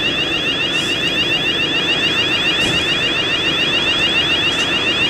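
Building fire alarm sounder going off with a fast, endlessly repeating rising sweep: an automatic fire alarm activation, here a false alarm set off by refurbishment work.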